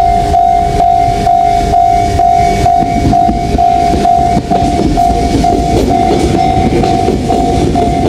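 Electronic level-crossing warning bell ringing steadily, a single tone repeating a little over twice a second. A Tobu 500 series Revaty limited express electric train approaches under it, its rumble growing from about three seconds in as it reaches the crossing.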